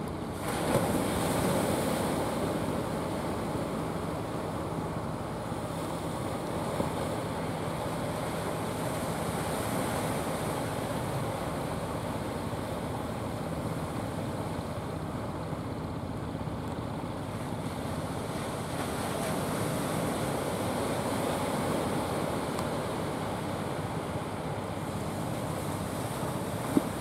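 Sea surf washing and wind on the microphone, under a low steady engine hum from fishing boats coming in. A single short knock near the end.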